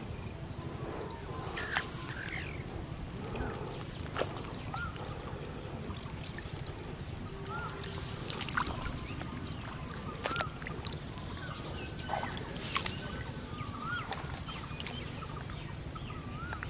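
Water splashing and sloshing in a shallow, weed-covered flooded field as a catfish is grabbed and lifted out by hand, with sharp splashes every few seconds over a steady low rumble. Short high chirps come and go throughout.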